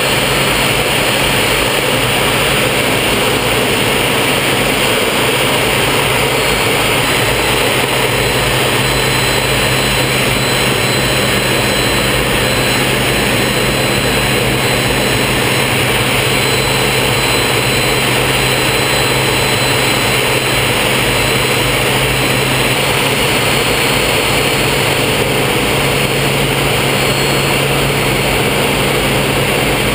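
Folland Gnat's Bristol Siddeley Orpheus turbojet and the rush of air over the canopy, heard from inside the cockpit in flight: a loud, steady roar with a low hum and a thin high whine, which shifts about three-quarters of the way through.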